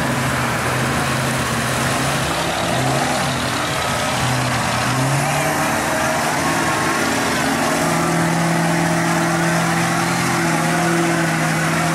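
Ford diesel mega mud truck engine running under load as the truck churns through a mud bog. The engine note climbs in steps, about five seconds in and again about eight seconds in, as the revs rise.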